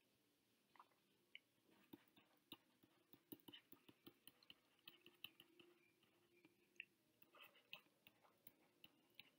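Faint, irregular ticks of a stylus tapping and sliding on a tablet screen during handwriting.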